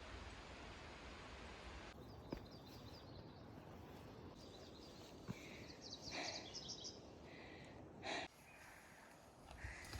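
Faint outdoor trail ambience, a steady wash of noise, with short high bird chirps midway and a brief breath-like sound from a hiker near the end.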